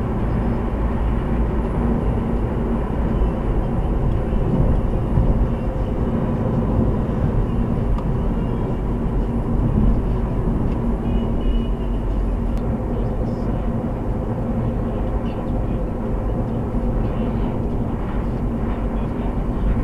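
Steady engine and tyre road noise of a car driving along, heard from inside the cabin through a dashcam's microphone.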